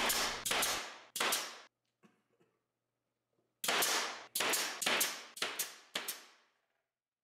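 Pneumatic SENCO brad nailer firing nails into a glued wooden frame: a sharp shot with each nail, three in quick succession, a pause of about two seconds, then a run of about six more.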